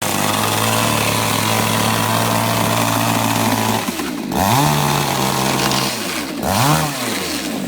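Petrol chainsaw's two-stroke engine running at a steady speed, then revved up and dropped back twice in the second half.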